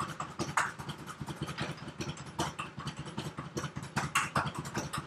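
Rapid, irregular clatter of sharp clicks and taps, several a second.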